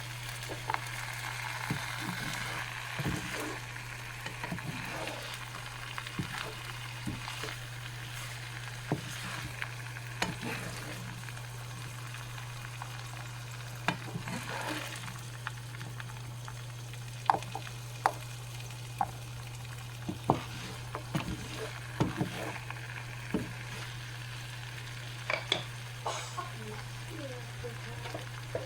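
Food frying in hot oil, a steady sizzle with scattered sharp pops and crackles, over a steady low hum.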